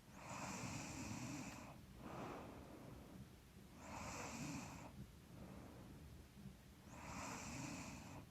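A woman snoring softly in her sleep: three long, hissy inhales about three seconds apart, each followed by a shorter, fainter exhale. She puts the snoring down to being a little stuffy.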